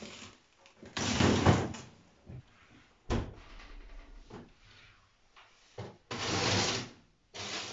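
Clear plastic drawer of a built-in kitchen freezer sliding shut and being pulled open again. There is a long sliding rush about a second in, a sharp knock about three seconds in, and another slide about six seconds in.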